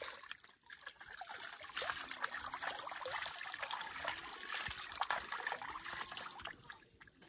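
Water splashing and trickling as hands scoop it from a shallow irrigation channel and splash it onto a face, in repeated irregular splashes.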